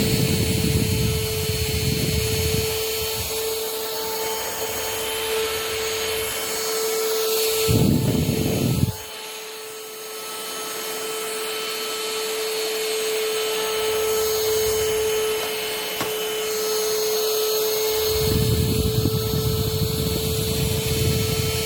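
VersLife S6PRO cordless stick vacuum running with a steady whine. A louder low rushing noise comes and goes: at the start, briefly about eight seconds in, and again near the end.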